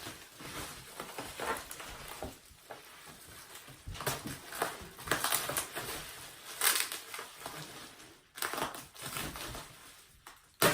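Packing wrap being pulled off a new exhaust muffler, crinkling and rustling in irregular bursts.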